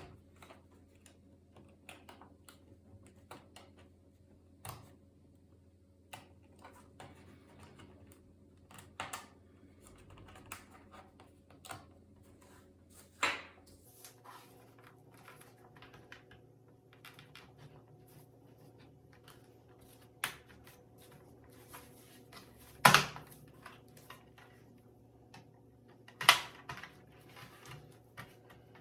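Irregular small clicks and taps from hands working on a Toshiba Satellite C50 laptop, with a few louder knocks, over a faint steady hum.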